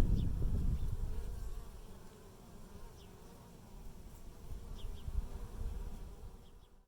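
Honey bees buzzing around a hive, loudest in the first two seconds, then fading to a faint hum.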